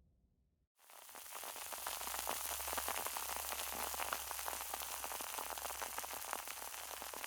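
Champagne fizzing: a fine, steady crackle of countless tiny bubble pops, starting about a second in after a moment of silence.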